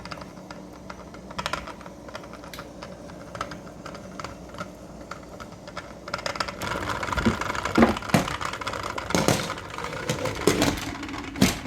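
Cans knocking and the lid rattling on a covered pot of boiling water: rapid light clicking that grows louder and more clattery about halfway through.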